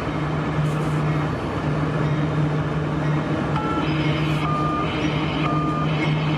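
Diesel locomotive approaching: a steady low engine hum that pulses in and out, joined from about halfway in by short, repeated high beeping tones.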